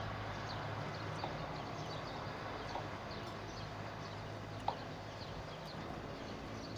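A small songbird giving short, sharp downward chirps again and again at irregular intervals, over a steady hiss and a low hum.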